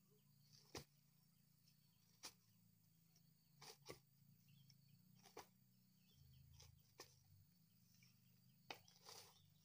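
Faint, scattered knocks of dry coconut husks and shells being gathered by hand and dropped into a woven plastic sack, about one every second.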